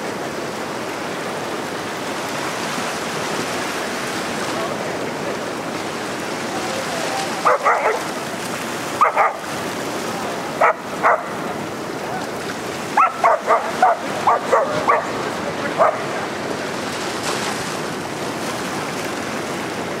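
German shepherd puppy barking at the incoming waves: about fifteen short, sharp barks in quick bursts of two to five through the second half. Under it the steady wash of small waves breaking on the beach.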